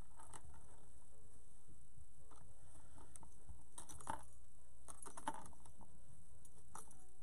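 Cotton fabric strips rustling as they are knotted onto a wire wreath frame, with scattered light clicks and taps from the handling, over a steady low hum.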